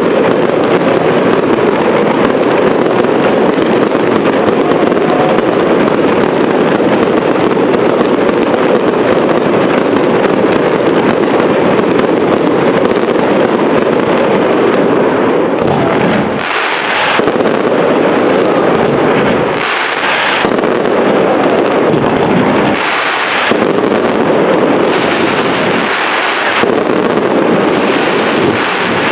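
Professional fireworks display: a dense, continuous barrage of rapid bangs from shells and launches. From about halfway through, waves of high crackling hiss come every three seconds or so as glittering crackle effects burst.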